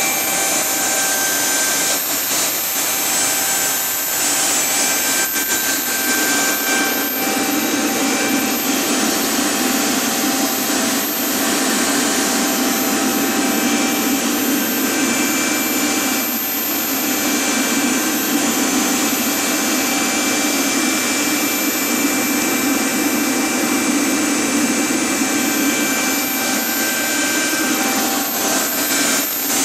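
Rover/Lucas gas turbine ground power unit running steadily at its governed speed. A continuous rushing exhaust noise with a steady whine on top.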